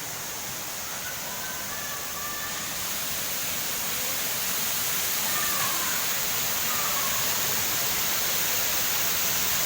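Waterfall: a steady rush of falling water, growing slightly louder over the first few seconds.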